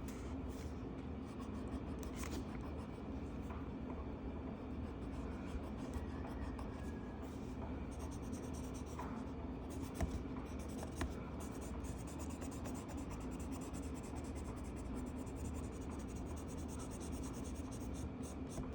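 Colored pencil scratching across a coloring book page in steady back-and-forth colouring strokes, with a low steady hum underneath and a couple of small clicks about ten seconds in.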